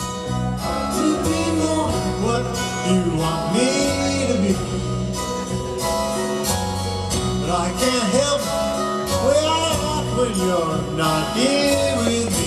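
Live band playing a song, with a sung vocal melody over grand piano, keyboards, bass guitar and drums.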